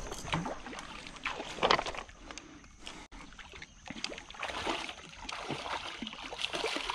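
Water sloshing and splashing in irregular bursts as a hooked asp is brought to the landing net, with a stronger splash about two seconds in.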